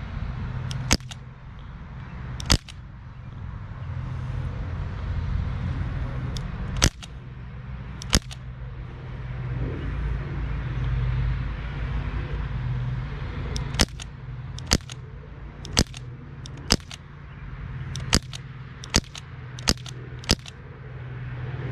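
A Crosman 1077 CO2 pellet rifle firing about a dozen sharp cracks. The first few are seconds apart, then they come about one a second near the end. A steady low traffic rumble runs underneath.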